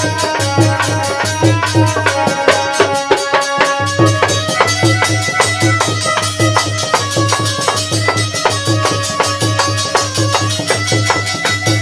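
Harmonium and dholak playing an instrumental passage of a Hindi folk bhajan, with no singing: held harmonium notes over a fast, steady dholak rhythm.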